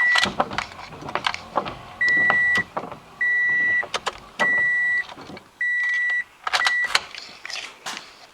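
2005 Toyota Matrix's warning chime beeping: one steady high-pitched tone repeated as about five beeps of roughly half a second each, among sharp clicks and knocks of handling around the car.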